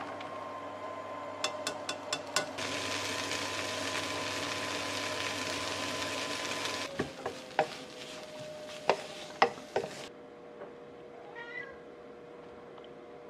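Potato strips sizzling in a hot frying pan, with a few clacks, then a run of sharp spatula knocks against the pan. A cat meows briefly near the end.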